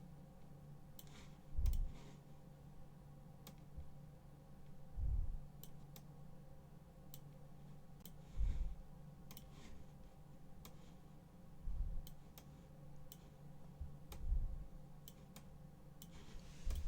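Faint, scattered sharp clicks, like a computer mouse or keyboard, with a soft low thump about every three seconds.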